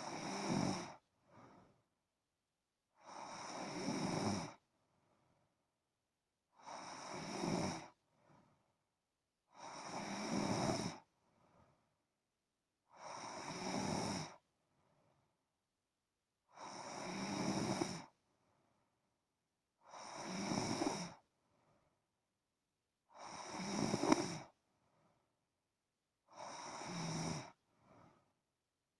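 A sleeping person snoring steadily: nine snores about every three seconds, each swelling over a second and a half and cutting off sharply, several followed by a short faint puff of breath.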